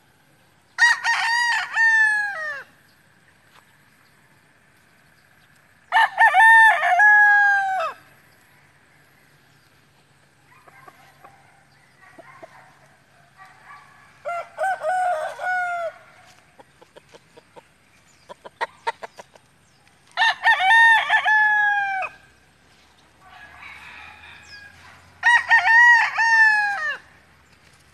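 Roosters crowing: five crows of about two seconds each, spaced roughly five to six seconds apart, each tailing off downward in pitch at the end, one of them fainter than the rest. Softer short calls and clicks come between the crows in the middle stretch.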